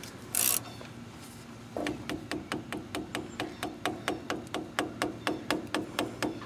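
Quarter-inch ratchet working the differential's pinion-shaft lock bolt loose: a steady run of light clicks, about four a second, starting about two seconds in. A brief rustle comes just after the start.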